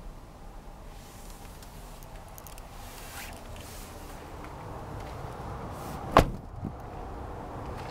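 Renault Master van door being shut: one sharp slam about six seconds in, followed by a smaller knock, over a low background and some handling rustle.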